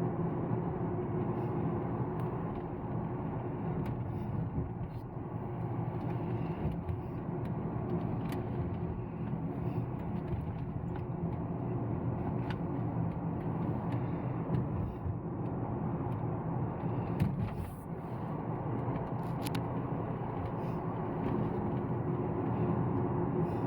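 Car driving along a road: steady engine hum and tyre noise, with a few faint knocks.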